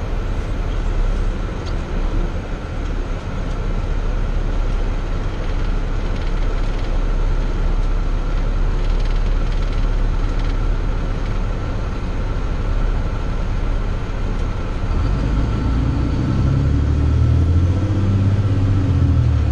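Snow-plow truck heard from inside its cab while driving: a steady engine and road rumble with a faint steady whine. The low rumble grows louder and deeper about fifteen seconds in.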